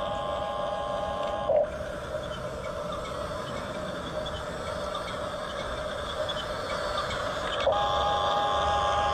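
Small electric gear motors of a Hunia 1569 toy RC bulldozer running, with a steady whine that starts and stops: once in the first second and a half and again near the end, over a continuous mechanical hum.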